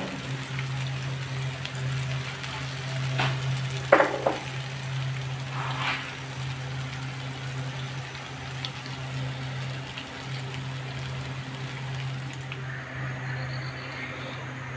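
Pakoras deep-frying in a pan of heavily foaming oil, a steady sizzle with a low hum under it. A few brief knocks or scrapes come around three to six seconds in.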